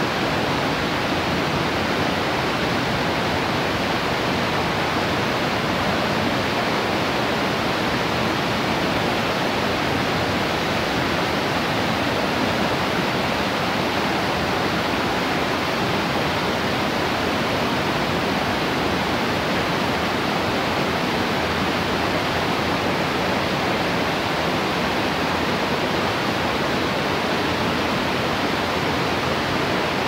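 Waterfall and rocky mountain stream rushing over boulders: a steady, unbroken rush of water.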